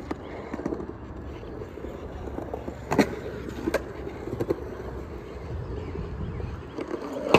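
Skateboard on hard wheels rolling and carving across a concrete bowl, a steady rolling rumble. Sharp knocks of the board sound about three seconds in and again shortly after, and there is a loud clack near the end.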